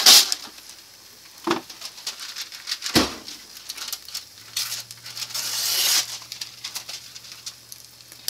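Wax paper crinkling and rustling as it is pulled from its box and laid out, with two sharp knocks in the first three seconds and a longer rustle that builds and stops about six seconds in. An egg sizzles faintly in the frying pan underneath.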